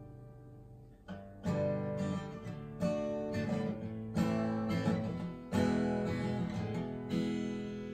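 Gibson J-45 acoustic guitar (solid spruce top, mahogany back and sides) being strummed, sounding in tune straight out of the box. A chord dies away over the first second, then the playing resumes as a run of strummed chords, each left to ring.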